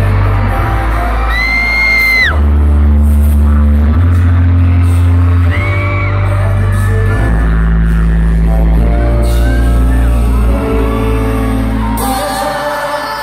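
Loud K-pop dance track with heavy bass over a concert hall's sound system, with the boy group singing. A fan's high scream rises over the music about a second in, and a shorter one comes a few seconds later.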